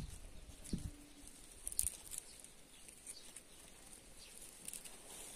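Faint rustling and light taps of pine cones being picked off a pine tree by hand, with a few brief high chirps.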